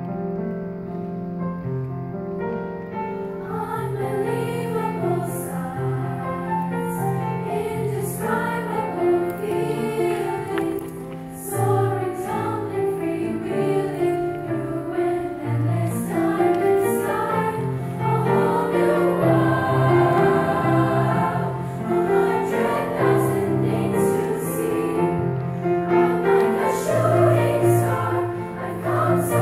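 A girls' middle school choir singing in harmony, with grand piano accompaniment.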